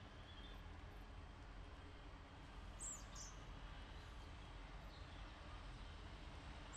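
Faint outdoor background noise, with a bird giving a short high chirp about three seconds in.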